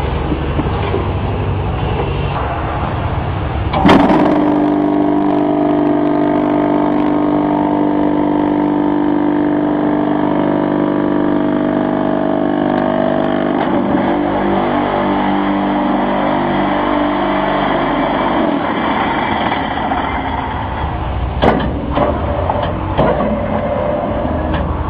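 Manual concrete block-making machine at work: a low, rough mechanical rumble, then a sharp metal clang about four seconds in followed by a steady humming tone that fades out, and a few metal knocks near the end as the moulded block is handled.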